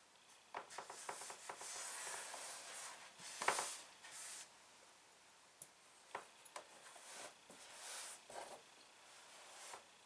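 Fabric quilt blocks rustling and brushing against a flannel design wall as they are handled and pressed into place, with light taps and clicks. The loudest brush comes about three and a half seconds in.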